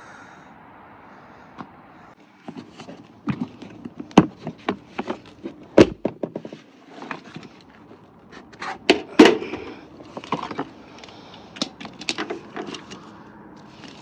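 Irregular knocks, clanks and scraping from hand work with tools and materials. They start about two and a half seconds in, with a few sharp, loud single hits among them.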